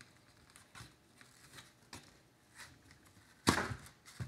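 Kitchen knife slicing through a large apple: a few faint crunching strokes, then a much louder knock about three and a half seconds in.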